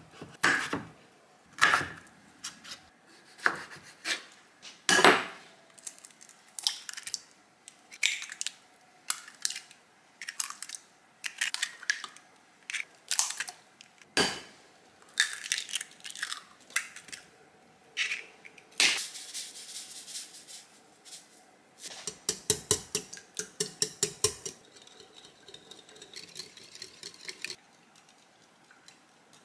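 A kitchen knife cutting strips of pickled radish (danmuji) on a wooden cutting board, one stroke at a time. Later, eggs are cracked against a glass bowl and beaten with a wire whisk, a quick run of clicks against the glass.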